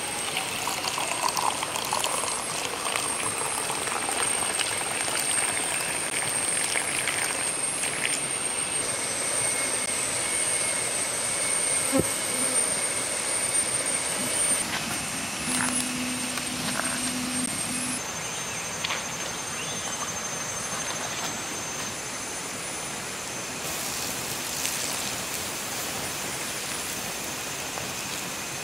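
Rainforest riverside ambience: a steady rushing like running water, with a thin high insect drone above it. It shifts abruptly a few times.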